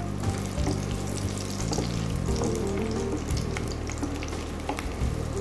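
Sliced garlic and ginger frying in hot sunflower oil, a steady crackling sizzle with scattered small pops, while a spatula stirs them around the pan.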